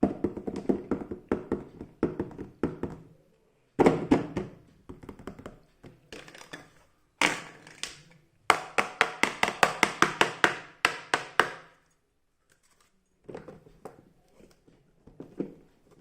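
Small plastic toy pieces of a mini kitchen set being handled and set down, making runs of sharp clicks and taps. The taps come fast, several a second, in bursts near the start and again in the middle, and are softer near the end.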